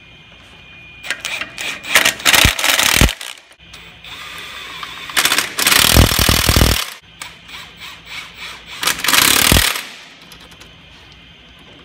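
Cordless impact wrench driving the 12-point bolts that hold a unit bearing hub to the axle knuckle. It gives three bursts of hammering, each about a second to a second and a half long, roughly three seconds apart.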